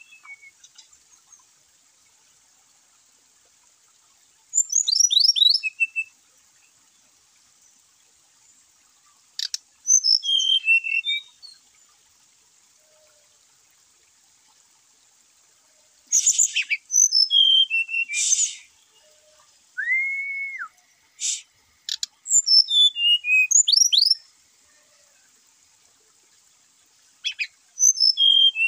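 Brown-chested jungle flycatchers singing in short bursts of quick whistled notes that fall in pitch, about six phrases separated by pauses of a few seconds, one of them a single slurred whistle.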